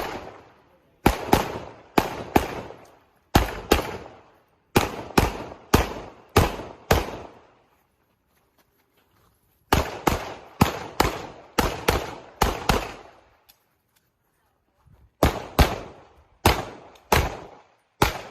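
Handgun shots fired in rapid pairs, each shot ringing out with an echo, in strings of several pairs. The shooting stops twice, for about two seconds each time.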